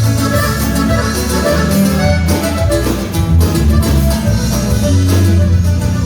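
Norteño band music: an instrumental passage with plucked guitar over a steady bass line, without singing.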